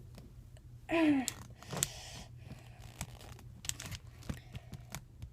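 A short vocal cry falling in pitch about a second in, followed by scattered light clicks and taps over a low steady hum.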